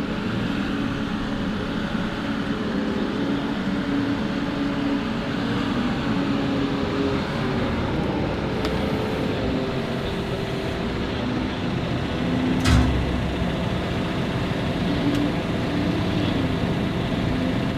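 Claas Torion 1511 P wheel loader's diesel engine running, its pitch shifting now and then as the machine works. A single thump comes about two-thirds of the way through.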